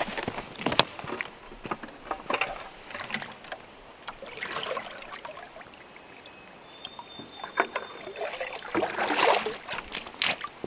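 A 5-gallon plastic pail dipped into a stream and filling: water sloshing and gurgling into it, with scattered sharp clicks and knocks, loudest about nine seconds in.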